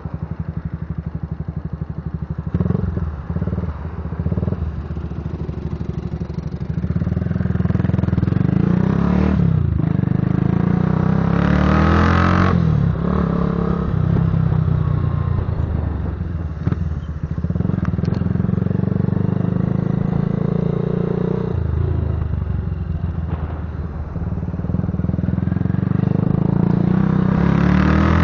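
Patagonian Eagle cruiser motorcycle being ridden, its engine giving a deep exhaust rumble. It gets louder about seven seconds in, and the revs rise and fall several times as the throttle opens and closes.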